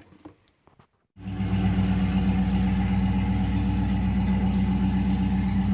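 A few faint clicks, then a car engine starts running a little over a second in and keeps going at a steady pace.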